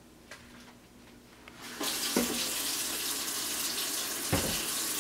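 Kitchen tap running into a stainless steel sink over hands being rinsed. It comes on about two seconds in, then runs steadily, with a couple of soft knocks.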